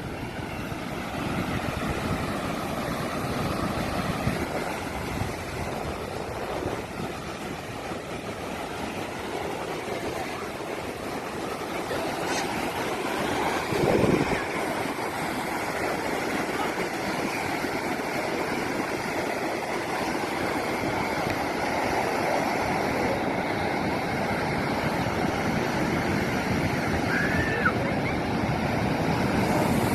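Ocean surf: waves breaking and washing in, a continuous rushing noise with one louder surge about halfway through.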